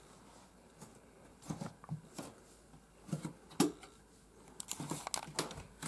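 Irregular soft rustles and light taps in several short clusters, the sharpest tap about three and a half seconds in.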